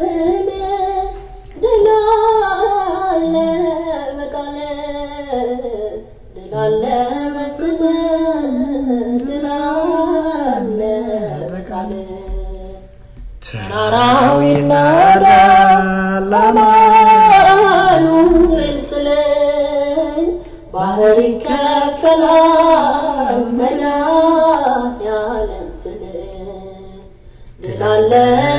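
A single voice singing an Ethiopian Orthodox hymn (mezmur) unaccompanied, in long drawn-out, ornamented phrases broken by short pauses for breath.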